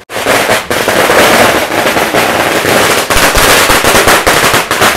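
Firecrackers going off in a dense, rapid crackle of many bangs close together, very loud; it starts suddenly and does not let up.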